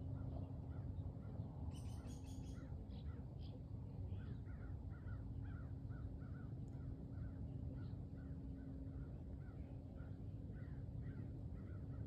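Wild birds calling by a lake: a brief rapid high-pitched chatter about two seconds in, then a long series of short repeated calls, a few each second, over a steady low outdoor rumble.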